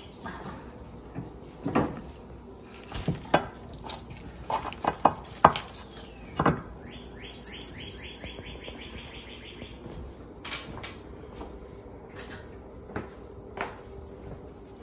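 Kitchen cookware clatter: scattered knocks and clinks of a frying pan, serving platter and utensils as a whole roasted lamb leg is lifted and set down, busiest in the first six seconds. Around the middle comes a quick run of about a dozen faint high ticks.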